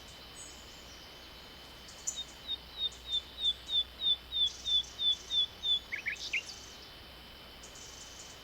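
A songbird sings a run of about a dozen short, high, falling notes, about three a second, then a few quick lower notes. Beneath it is a steady hiss of light spring wind.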